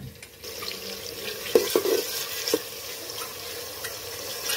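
Chopped onions sizzling in hot oil in a steel pot, a steady hiss that starts about half a second in. A steel ladle knocks against the pot a few times as the onions are stirred.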